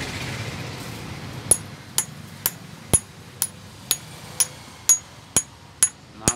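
Metal hammer tapping a bearing onto the hub of an Ape auto gearbox's counter (cluster) gear: evenly spaced strikes about two a second, each with a short high metallic ring, starting about a second and a half in.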